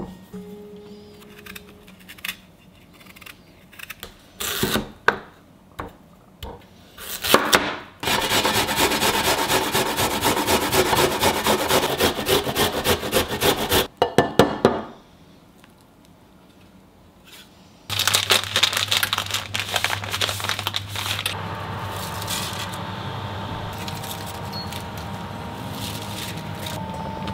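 Daikon radish grated on a metal grater: a fast, continuous rasping for about six seconds, after a run of separate scraping strokes on the radish. Later, water boiling in a pot on the stove, with a steady low hum.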